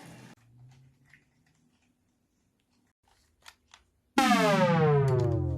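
A short stretch of music cuts off, then a few faint clicks in near silence. About four seconds in comes a loud electronic power-down effect: a buzzy tone sliding steadily down in pitch for about two seconds, marking the remote control's batteries running out.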